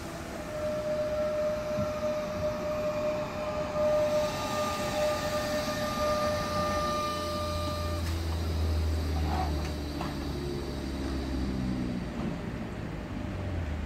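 Renfe Class 447 electric multiple unit pulling into the platform and braking to a stop. A steady high whine cuts off about eight seconds in, then a low hum with tones falling in pitch as the train slows to a halt.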